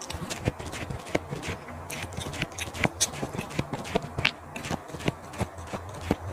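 Close-miked chewing of barbecued sausage and lettuce, with a quick irregular run of wet mouth clicks and crunches over a low hum.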